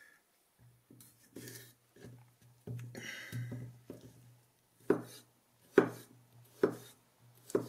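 A folding knife slicing a firm tomato on a wooden cutting board. Soft cutting and rubbing sounds come first, then four sharp knocks, about a second apart, as the blade goes through and strikes the board.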